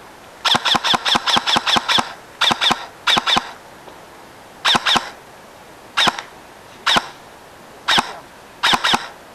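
Airsoft electric rifle (AEG) firing semi-auto: a quick string of about eight shots in the first two seconds, then shots in pairs and singly about every second. Each shot is a sharp click of the piston with a brief whine from the motor and gearbox.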